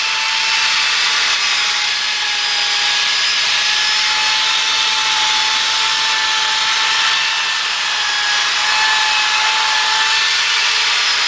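Electric drill running a wire brush against a rusty wrought iron post, scouring off heavy rust: a steady motor whine over a harsh scrubbing hiss.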